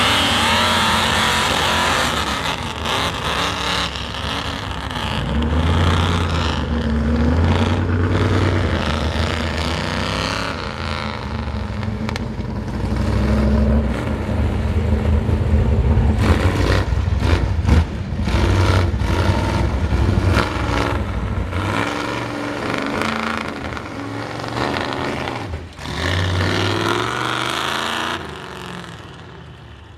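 Ford mud truck's open-exhaust engine revving hard, its pitch surging up and down again and again, with sharp cracks and knocks over it, then falling away near the end.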